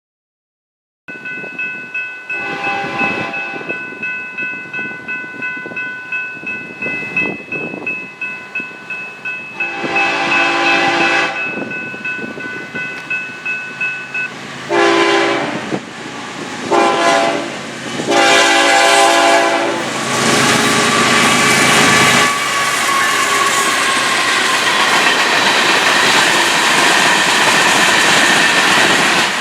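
Florida East Coast Railway freight train approaching with its diesel locomotives' air horn sounding two long blasts, two short and a long. Under the horn a crossing bell rings steadily at about two strokes a second. From about 20 seconds in, the lead GE locomotives pass loudly with engine and wheel noise.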